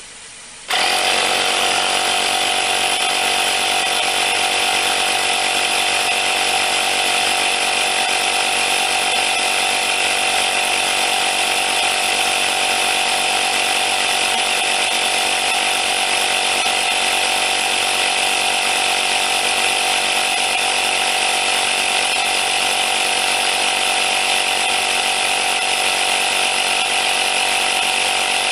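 JACO portable digital tire inflator's air compressor switching on about a second in and running steadily with a buzzing whine, pumping a car tire up from 27.5 psi toward a set 31.5 psi.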